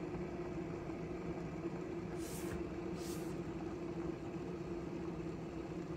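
Aphrodite O3 table-top hair and face steamer heating its water towards the boil: a steady low hum, with two brief hisses about two and three seconds in.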